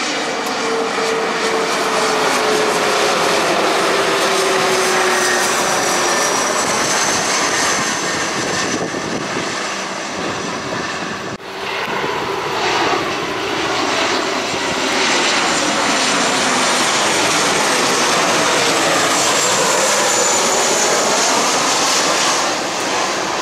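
Jet airliners on final approach passing low overhead with their turbofan engines running: first a Bombardier CRJ regional jet with a slowly falling whine, then, after a sudden break about halfway, a Boeing 737. Each is a loud, steady rush of engine noise that sweeps in pitch as it passes.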